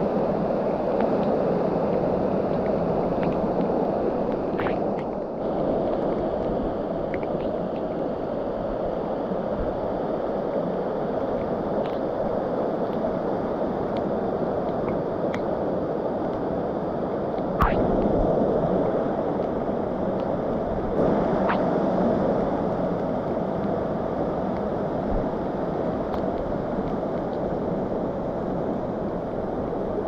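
Mountain stream rushing in white water down a cascade over granite slabs: a steady, unbroken rush. A single sharp knock sounds a little past the middle.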